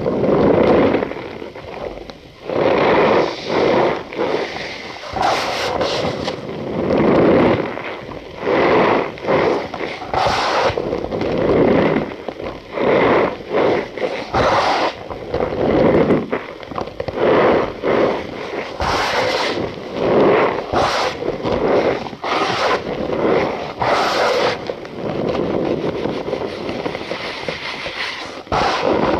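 Cornstarch powder squeezed and pressed by hand, giving repeated squeaky crunches, each lasting about a second, with short pauses between.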